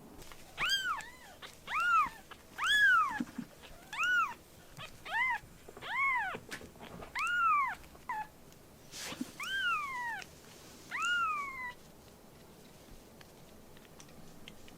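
A kitten meowing about ten times in quick succession. Each call is a short, high-pitched meow that rises and then falls in pitch, and the calls stop about twelve seconds in.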